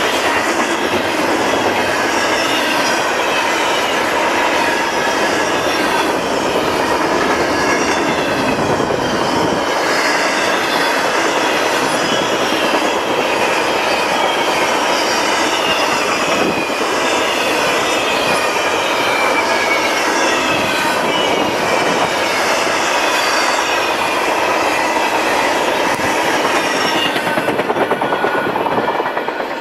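Freight train cars rolling past, steady and loud, their steel wheels squealing in thin high tones and clacking over the rail joints.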